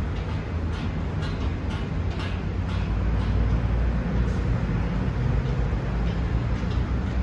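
Strong wind buffeting the microphone: a steady low rumble, with a few light rustles about one to three seconds in.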